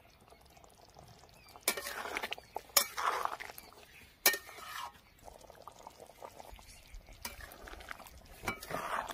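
A spatula stirring thick chicken and potato curry in a metal kadai: wet sloshing and scraping of the gravy, with a few sharp clinks of the spatula against the pan, starting about a second and a half in.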